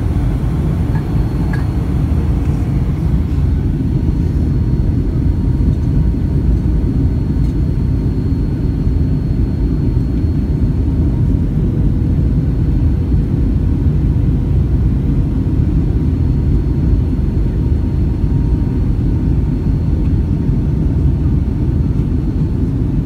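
Boeing 757-200 cabin noise on approach: a loud, steady rumble of the engines and rushing air heard from inside the cabin, with a faint steady hum above it.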